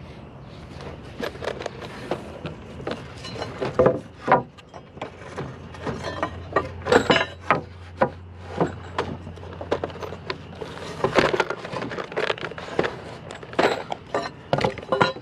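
Rough-sawn 2x4 lumber and hand tools being handled: an irregular run of knocks, clicks and scrapes, with a louder cluster around the middle and again near the end.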